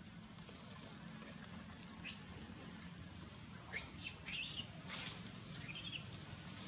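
A few short, high-pitched animal squeaks, some gliding up or down in pitch, over a steady low background hum.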